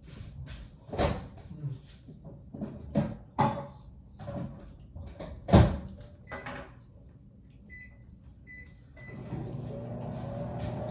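Marginated tortoise biting and tearing at flowering plant stems: irregular sharp crunches and rustles, the loudest about five and a half seconds in. Near the end a steady low hum comes in.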